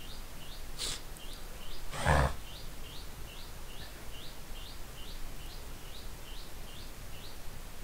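A faint, short, rising high-pitched chirp repeating about twice a second, stopping shortly before the end. A sharp click comes about a second in, and a louder thump at about two seconds.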